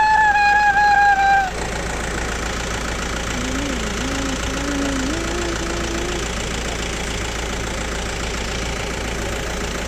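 A boy's high-pitched held vocal sound that drifts slightly down and stops about a second and a half in. A quieter, wavering low hum follows for a few seconds, over a steady background drone.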